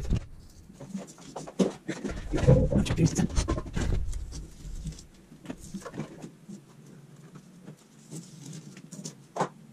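A run of short scrapes and taps from hand work. They are thickest and loudest about two to four seconds in, then thin out and grow quieter, with one sharp click near the end.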